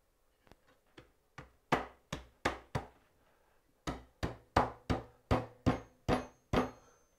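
Dovetail joints of a wooden cabinet frame being knocked home by blows on the top rail: a few light taps, four hard knocks about two seconds in, then after a short pause eight hard knocks in quick succession.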